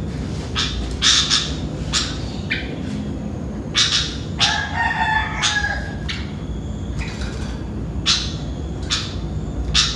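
Sooty-headed bulbuls (kutilang) giving short, bright calls every second or two, with a longer, lower call about halfway through, over a steady low rumble.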